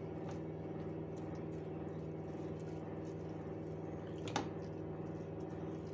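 Silicone spatula stirring cooked rice and lentils in a non-stick pot, a soft squishing and scraping as the stuffing is turned over to cool. Under it runs a steady hum, with a single click about four seconds in.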